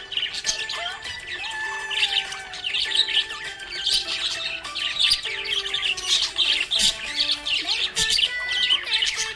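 Budgerigars chirping and twittering continuously in quick, overlapping calls, over background music with held notes.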